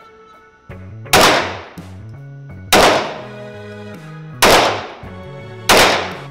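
Four shots from a 9mm Glock 19 Gen 4 pistol with gas ports in the slide, fired about one and a half seconds apart, each a sharp crack with a short echoing tail. Background music plays under the shots.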